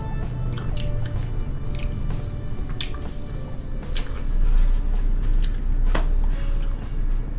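Close-miked wet chewing, with sharp mouth clicks and smacks as food is eaten, over light background music.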